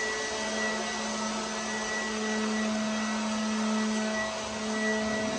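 Ryobi 18V cordless leaf blower running steadily: a constant motor whine over the rush of air from the nozzle. It is fairly quiet, about as loud as a household vacuum.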